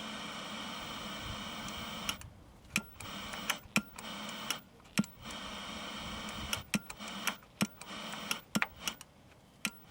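Steady hiss from a powered-on 1980 Sony Trinitron KV1913 colour television on the repair bench. From about two seconds in the hiss keeps cutting out and back in, with a dozen or so sharp clicks.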